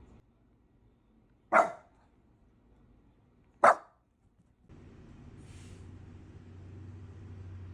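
Shiba Inu giving two short, sharp barks about two seconds apart. A low, steady hum-like sound comes in about three seconds later.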